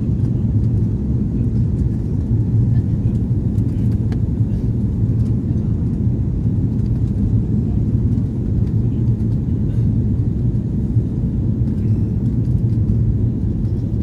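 Steady low rumble inside the cabin of an Airbus A340-600 on approach, from its Rolls-Royce Trent 500 engines and the air rushing past the fuselage, heard from a seat over the wing.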